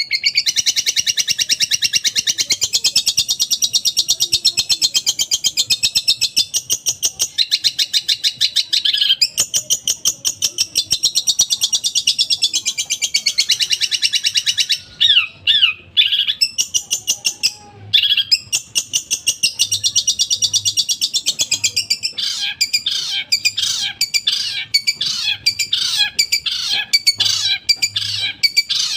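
Long-tailed shrike (cendet) singing a long run of very fast, rattling repeated high notes. Around the middle it breaks off into a few downward-sweeping calls, then picks up again. Near the end it shifts to a quick series of separate sharp notes.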